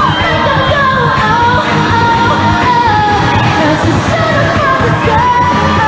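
Pop song with a woman singing a bending melody line over a full band, loud and steady throughout.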